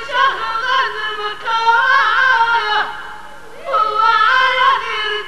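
A woman singing a Middle Atlas Amazigh 'maya' vocal, solo: long high held notes with sliding ornaments. She breaks off about three seconds in and then resumes.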